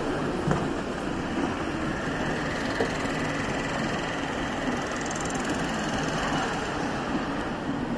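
Steady background hum of a station concourse and bus terminal: machinery and idling engines under a general noise wash, with a few faint knocks.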